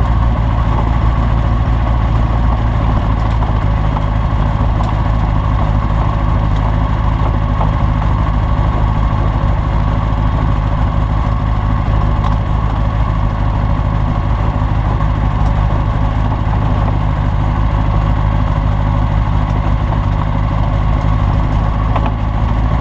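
Rotax 912S flat-four engine and propeller of a Skyranger Classic ultralight running steadily, holding one pitch throughout.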